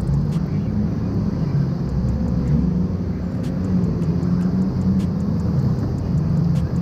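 Jet skis running past at speed, their engines a steady drone that rises and falls slightly.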